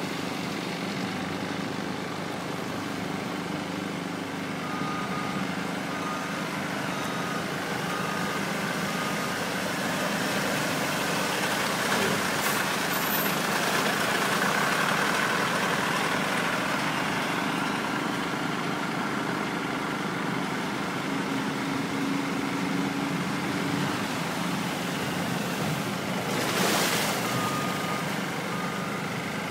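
Skid-steer loader's engine running steadily under load as its bucket pushes floodwater, with water rushing against the bucket. A reversing alarm beeps for a few seconds about five seconds in and again near the end, and there is one brief loud noise shortly before that.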